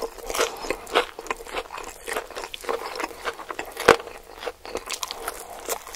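Close-up eating sounds: a person biting and chewing crunchy food, with irregular crunches and one sharp, louder crack about four seconds in.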